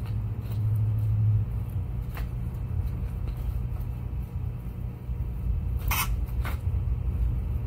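Low, steady rumble of an idling engine, with two short rustles about six seconds in as a damp microfiber cloth is wiped over an aluminum fuel tank.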